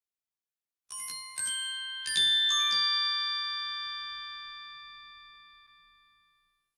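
A short musical chime sting: a quick run of about six bright, bell-like mallet notes struck about a second in, then left to ring and fade away slowly.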